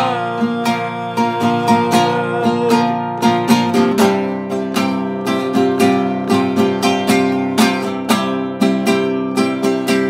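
Nylon-string classical guitar strummed in a steady rhythm.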